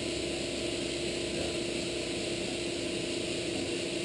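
Steady hum of operating-room equipment, with a constant low tone.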